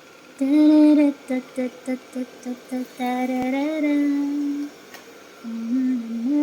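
A woman humming a short tune: a held note, a quick string of about seven short notes on the same pitch, another held note, then a few more notes near the end.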